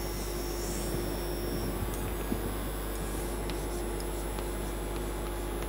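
Chalk drawing lines on a blackboard, with a few faint scrapes and taps, over a steady electrical hum.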